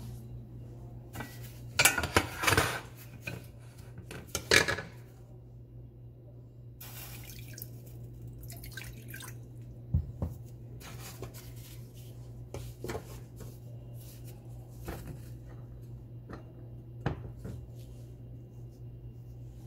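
Kitchen handling sounds: a few loud sharp knocks and clinks of dishes in the first five seconds, then liquid poured into a stainless steel saucepan about seven seconds in, followed by scattered single clinks of the pan on a glass-ceramic cooktop. A steady low hum runs underneath.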